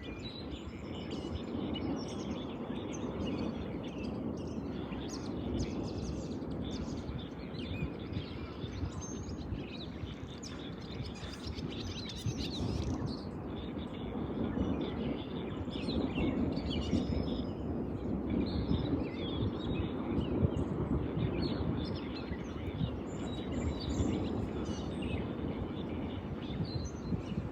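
Birds chirping repeatedly over a steady, rushing background noise.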